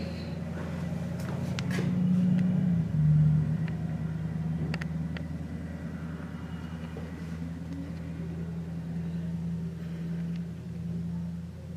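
A steady low mechanical hum, like an engine or machinery running nearby. It swells and drops slightly in pitch about two to three seconds in, with a few faint clicks over it.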